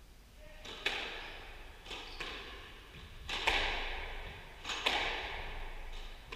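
Squash rally: the ball is smacked by rackets and off the court walls, a sharp hit every second or so, often in quick pairs, each ringing briefly in the court's echo.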